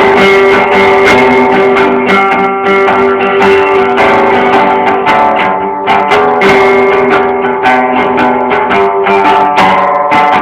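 Guitar strummed steadily in chords, without singing.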